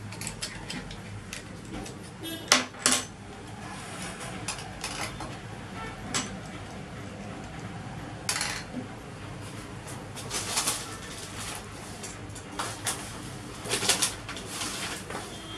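Scattered clicks and light knocks of hard polycarbonate parts as a GoPro is screwed onto a folding three-way monopod grip and the assembled mount is set down on a table, with a couple of sharper knocks about two and a half seconds in and a small cluster near the end.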